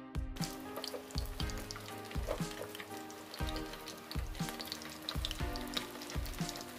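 Corn fritters frying in hot oil in a pan: a steady sizzle full of small crackles as more spoonfuls of batter go in.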